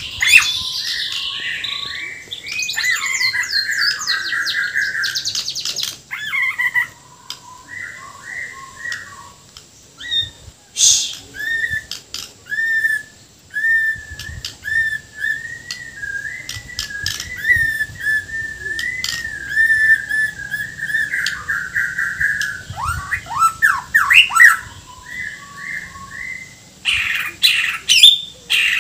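White-rumped shama (Murai Borneo) singing without pause, a loud, varied song full of harsh filler notes. It opens with fast chattering phrases, runs into a long string of short repeated whistles in the middle, and breaks into sweeping notes and more chatter towards the end.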